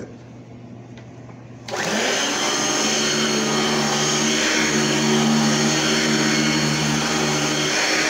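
Singer SST-315 6.2-amp upright vacuum cleaner switching on suddenly a couple of seconds in, then running steadily with a constant motor hum while it is pushed over a rug.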